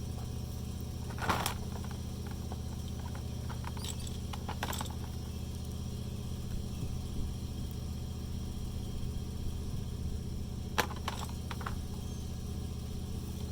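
A few short clicks and knocks as the fuel pump's plastic strainer is worked off, over a steady low hum.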